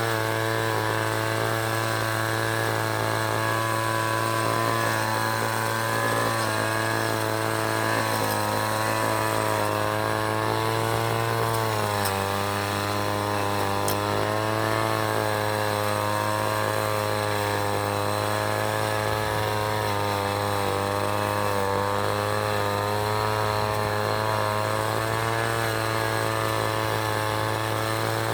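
City traffic: vehicle engines running, a steady drone over a low hum, its pitch wavering slowly and dipping about twelve seconds in.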